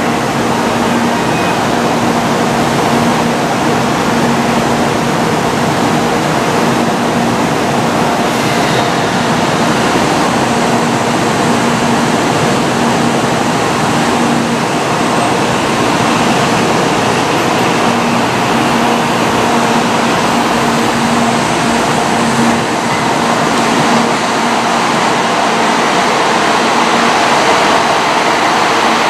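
N700-series Shinkansen train at the platform as it departs, a steady hum over a dense rushing noise. The noise swells slightly near the end as a second N700 train comes in.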